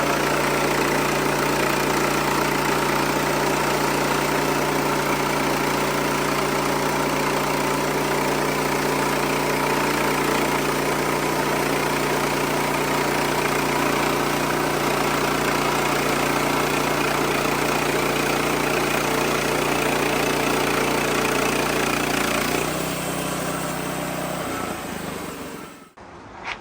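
Wood-Mizer LX55 bandsaw mill running steadily as it cuts a hickory log with a blade gone dull, which leaves waves in the cut. About 22 seconds in the sound drops lower and dies away.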